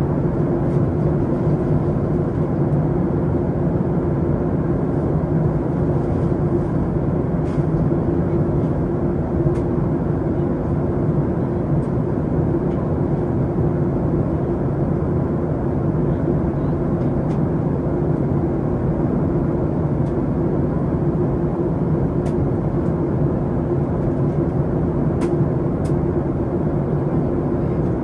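Steady in-flight cabin noise of a Boeing 737 MAX 8, the drone of its CFM LEAP-1B engines and airflow heard from inside the cabin, with a steady low hum running through it.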